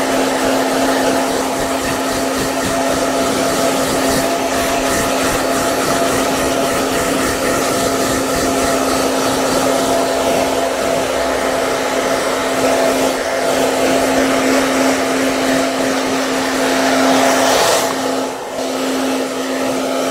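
Hair dryer running steadily: a constant motor hum under the rush of blown air. Near the end the sound wavers and dips briefly before steadying again.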